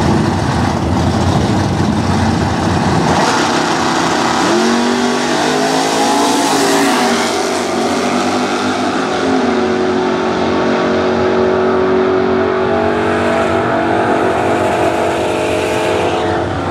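Supercharged drag-racing engines at full throttle launching off the line, their pitch climbing through the gears as the cars pull away down the strip and grow more distant.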